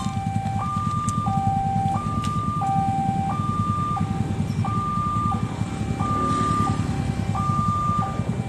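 Level-crossing warning siren sounding a steady hi-lo two-tone wail, alternating a higher and a lower tone about every two-thirds of a second, over a low engine rumble.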